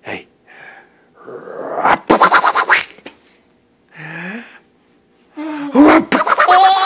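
Infant laughing and squealing while being tickled: a breathy burst of quick, pulsed laughter about two seconds in, then short high vocal squeals near the end.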